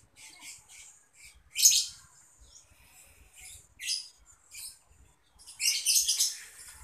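Small birds chirping: short, high, irregular chirps, with a loud group about a second and a half in and a busier run of chirps near the end.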